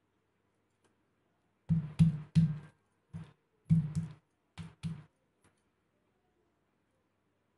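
Stone pestle pounding boiled elephant-apple slices on a stone grinding slab (shil and nora), crushing them flat: about eight dull blows in quick pairs between about two and five seconds in.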